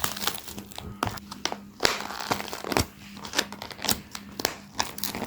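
Crinkling, rustling and tearing of takeout food packaging being opened by hand, in irregular crackles and clicks.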